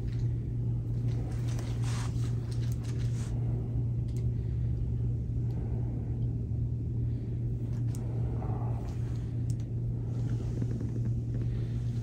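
A steady low hum, with a few faint soft rustles and small clicks over it.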